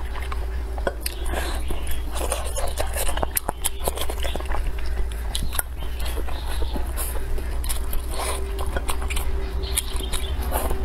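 Close-up sounds of a person eating spicy hot pot and rice: chewing and biting with many sharp mouth clicks. A steady low hum runs underneath.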